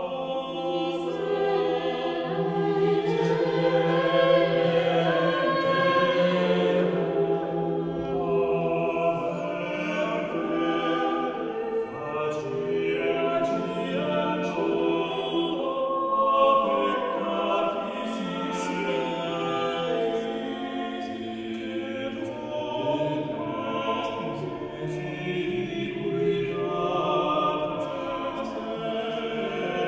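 Mixed-voice vocal ensemble of men and women singing Renaissance polyphony a cappella, several voice parts moving and overlapping in sustained lines.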